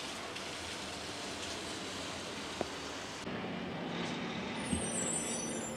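Outdoor ambience: a steady hiss for about three seconds, then, after a cut, the low hum of road traffic with faint high chirps near the end.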